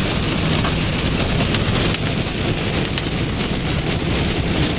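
Heavy rain and hail pounding on a vehicle, a dense steady hiss with a few sharp hailstone strikes cracking through it.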